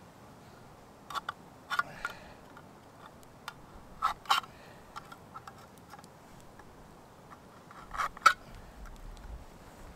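Knife blade being worked into the lid of a metal food can along its top seam to open it without a can opener. It makes sharp metallic clicks and taps, mostly in close pairs, about four pairs spread through, the loudest near the end.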